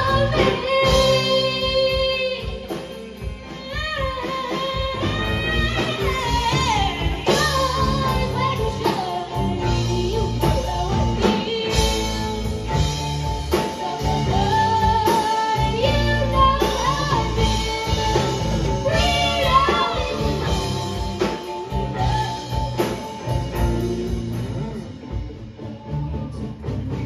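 Live rock band playing at full volume: drums, bass, guitars and keyboard, with a lead line on top that slides and bends in pitch.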